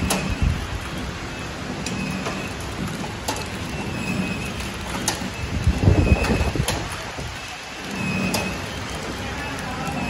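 Horizontal flow wrap packing machine running: a steady mechanical hiss and whir, with a sharp click about every one and a half to two seconds. A few louder low thumps come about six seconds in.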